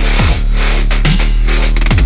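Loud electronic dubstep-style background music with a heavy steady beat and deep bass sweeps.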